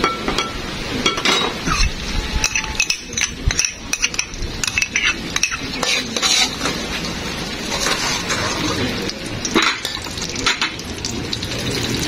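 Minced garlic frying in oil in an aluminium wok, being fried golden, while a metal spoon stirs and scrapes it, clinking often against the pan.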